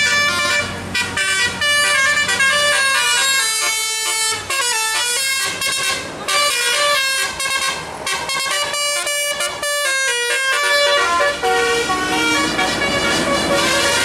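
Tour bus's musical 'telolet' air horn playing a quick tune of many short stepped notes, with brief breaks between phrases. It goes on more quietly over the last few seconds as the bus moves away.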